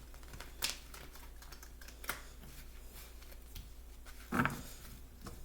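Tarot cards being drawn from the deck and laid down on the table: a few short, sharp clicks and taps, the loudest about four seconds in.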